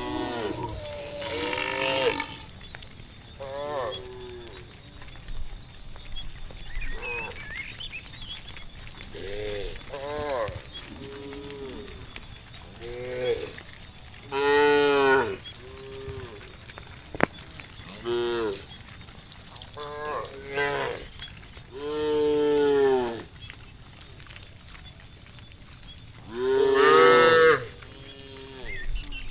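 A herd of cattle mooing, one call after another, some overlapping at different pitches, the loudest about halfway through and near the end. A steady high-pitched hiss runs underneath.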